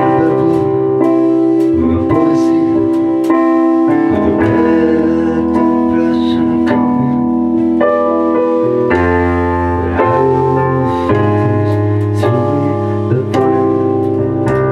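Live band music led by sustained piano chords on a digital stage piano, with bass guitar notes underneath and light percussion hits keeping time.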